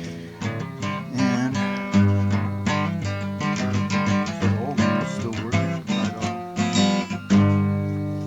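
Background music: acoustic guitar picked and strummed.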